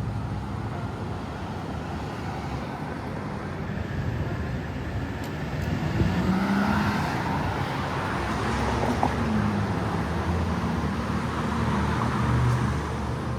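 Street traffic: cars running past on a city road, a steady rumble that grows louder about six seconds in.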